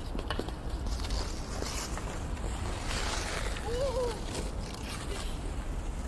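Kids playing hockey: scattered clacks of sticks and puck with distant children's voices, over a steady low rumble. A short shout rises and falls about four seconds in.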